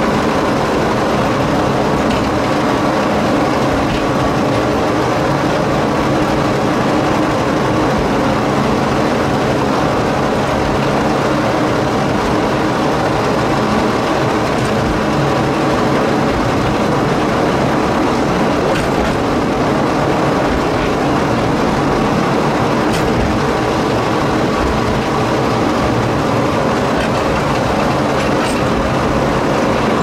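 Narrow-gauge forest railway train heard on board: the diesel locomotive's engine running steadily under load, with the continuous rumble of the passenger cars rolling on the 762 mm track and a few light clicks from the rails.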